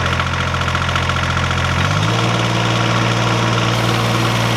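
Ventrac compact tractor's 24.8 hp Kubota diesel engine, just started, running steadily at idle; about two seconds in its speed steps up to a higher, steady pitch as the throttle is raised.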